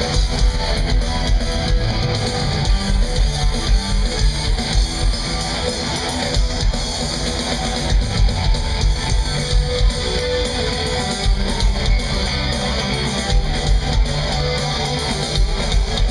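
Heavy metal band playing live through a large outdoor PA: distorted electric guitars, bass and drums with a steady beat, heard from within the crowd.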